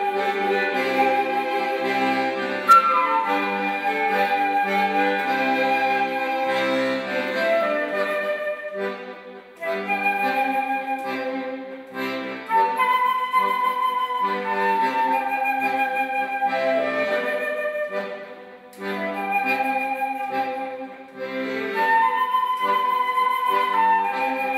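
Flute playing the melody of an Irish tune, with violin alongside, in phrases broken by short breaths.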